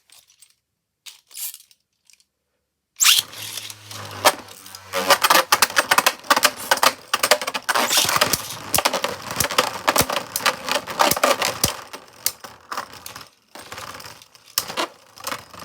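Two Beyblade Burst tops, Ultimate Valkyrie and Infinite Achilles, launched into a plastic stadium about three seconds in, then spinning and clashing with rapid clicks and knocks as they collide. The hits grow sparser and quieter near the end as the tops lose spin.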